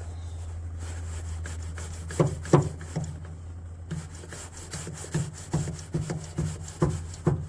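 Hand-pumped hydraulic crimping tool pressing a connector onto a heavy battery cable, with a short knock at each pump of the handle, about two to three a second, starting about two seconds in.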